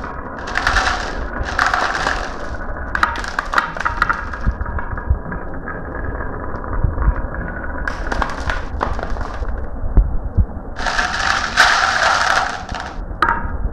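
Marbles rolling and clattering down a marble run, with many small clicks as they knock along the track and each other. Two stretches of denser rattle come near the start and again near the end.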